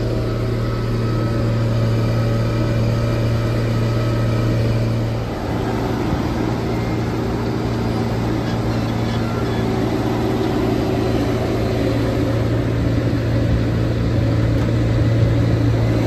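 Diesel engine of farm machinery running steadily with a deep, even hum. About five seconds in the level dips briefly, then the engine runs on with a slightly noisier sound.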